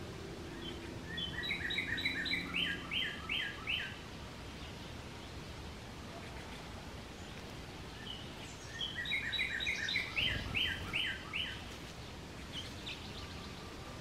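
A songbird singing the same short song twice, about seven seconds apart: each a run of clear chirped notes, quick and lighter at first, then slower and louder, lasting about three seconds.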